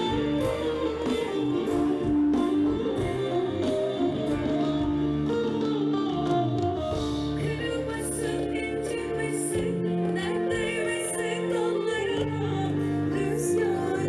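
Live band music with a woman singing over it, guitar among the instruments.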